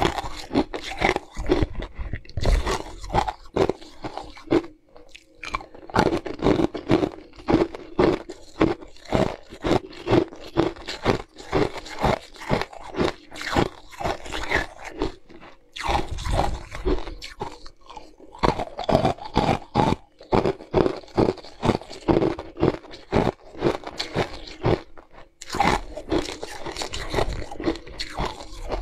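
Ice shapes being bitten and chewed right at the microphone: a rapid run of crisp crunches and cracks, with a few short pauses between bites.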